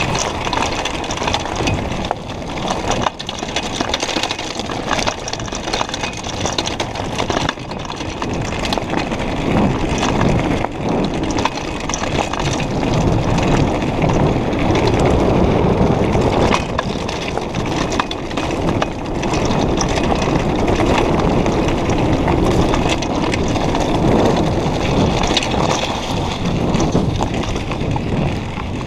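Mountain bike descending a loose gravel and stone track: tyres crunching over the stones and the bike knocking and rattling over bumps, with wind rushing over the camera microphone. It gets louder about a third of the way in as the pace picks up.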